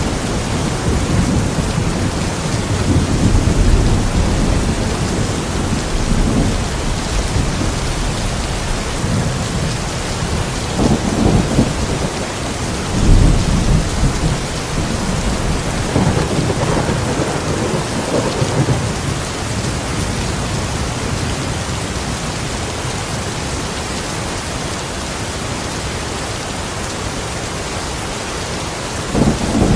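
Steady rain falling outside a window, with several low rolls of thunder swelling and fading through it, the loudest about a third of the way in.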